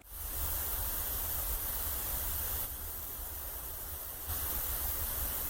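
Steady hissing noise with a low rumble underneath, dropping slightly in level about halfway through and rising again near the end.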